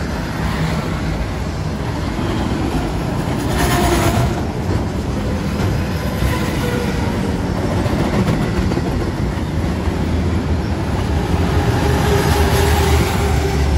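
Freight train of enclosed autorack cars rolling past close by: a steady, loud noise of steel wheels running on the rails and the cars' bodies rattling.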